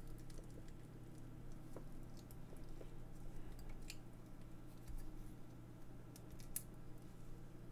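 Faint scattered clicks and rubbing of a small plastic receiver housing being handled as its two halves are fitted together to snap shut, over a steady low hum.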